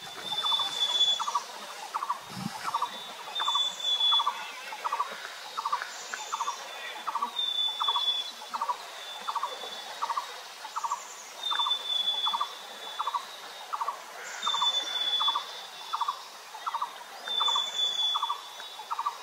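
Birds calling: one repeats a short, low note about one and a half times a second without a break, while another gives a short, high, slightly falling note every two to three seconds.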